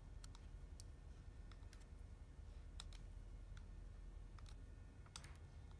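Faint, irregular small clicks and scrapes of a snap-off utility knife trimming and cleaning small plastic parts by hand.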